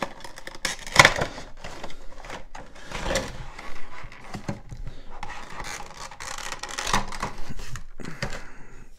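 Cardboard box and clear plastic packaging of a Funko Pop vinyl figure being handled: irregular crinkling, scraping and rustling with scattered clicks as the figure is worked out of its insert. The sharpest click comes about a second in.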